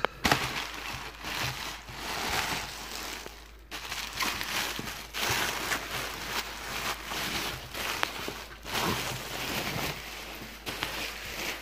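Bubble wrap and a plastic bag crinkling and rustling in irregular surges as they are pulled off a cast-metal locomotive air-horn bell.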